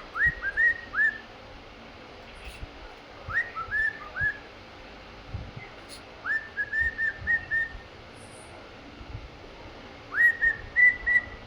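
Cockatiel whistling in four short bursts of three to six quick notes, each note sweeping up and then held briefly: the male's courting whistle.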